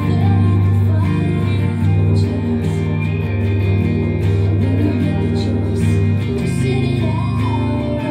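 Semi-hollow electric guitar strumming the chords of a country ballad, the chords changing every second or so.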